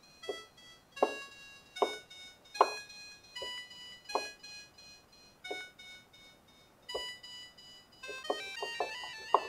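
Korg Minilogue Bass analogue synthesizer playing short plucked notes through its delay, the notes sounding in a regular series of echoes about 0.8 s apart. Near the end comes a quick run of short notes.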